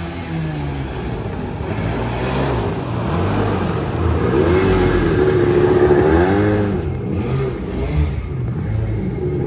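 Kawasaki 650 engine of a small aluminium jet boat running hard through turns, its pitch rising and falling over and over as the throttle changes, loudest around the middle.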